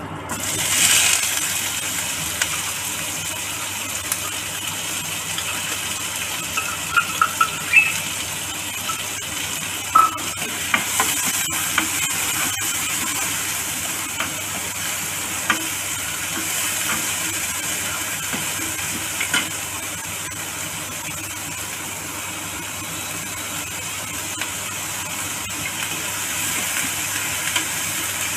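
Chopped onions hitting hot oil in an aluminium kadhai, sizzling sharply as they land and then frying with a steady sizzle, while a metal spoon stirs them and clinks against the pan now and then.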